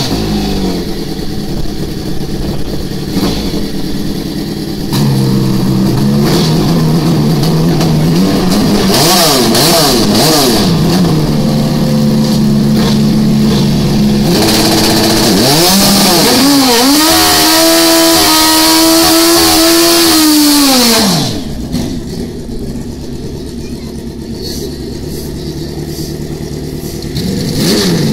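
Drag racing motorcycle engine idling and being blipped, then revved hard about halfway through and held at high revs for about six seconds, with a strong hiss, before dropping suddenly back to idle.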